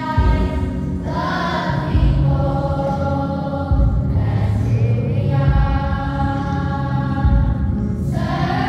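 A choir singing a processional hymn in long held notes, phrase by phrase, over low accompaniment.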